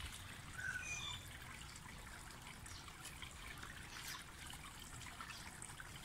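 Water from a homemade bird-bath fountain trickling and splashing into its basin, faint and steady, with a few brief high notes about a second in.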